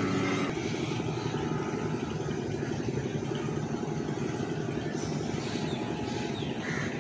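A speedboat's outboard engine running steadily under a rush of wind and water noise; a higher, steady engine note cuts off abruptly about half a second in.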